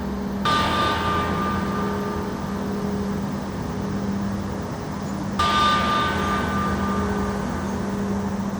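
Large Orthodox cathedral bell struck twice, about five seconds apart. Each stroke rings out with several clear tones and fades slowly, over a steady low hum.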